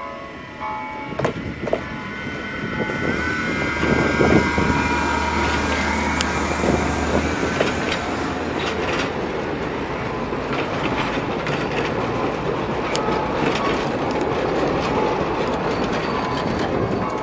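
Narrow-gauge MBxd2 diesel railcar passing, its engine humming as it goes by, then its open-sided passenger cars rolling past with wheels clicking over the rail joints.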